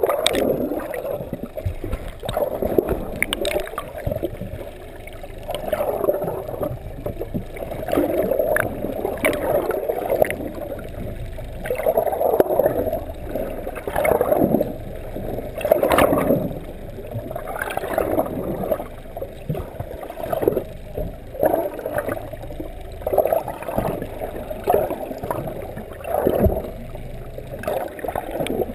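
Water rushing and gurgling past a submerged camera housing, heard muffled through the housing, swelling and falling irregularly with brief splashy surges.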